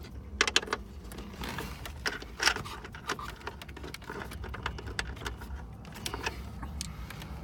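Scattered clicks, taps and light rattles of plastic dash trim and tools being handled inside a car, with a steady low hum underneath.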